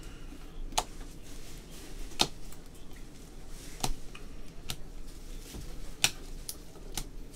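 Stack of trading cards being flipped through by hand: sharp, irregular clicks and snaps of card edges, roughly one a second, over faint rustling.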